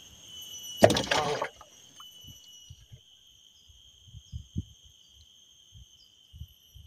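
Steady high-pitched insect chorus, like crickets or cicadas, with a loud, rough half-second burst of noise about a second in, followed by scattered soft low knocks.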